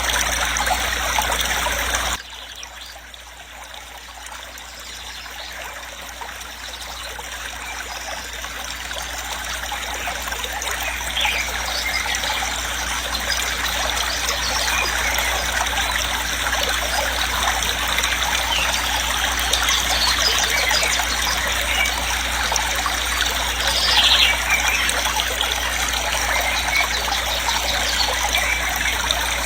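Waterfall rushing steadily. About two seconds in the sound drops off sharply, then swells back up to full strength over the next ten seconds.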